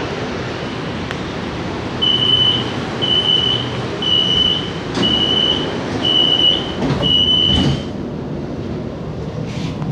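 Metro train's door-closing warning: six even high-pitched beeps about once a second, with a knock as the doors shut near the end of the beeps. The car's steady hum runs underneath.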